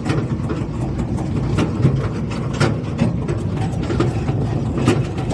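Engine and road noise of a moving vehicle heard from inside it: a steady low rumble with frequent short knocks and rattles.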